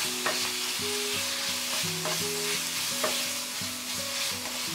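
Sliced pork sizzling in oil in a frying pan as it is stir-fried with a wooden spatula, with a few sharp taps of the spatula against the pan. Soft background music with a slow run of held notes plays underneath.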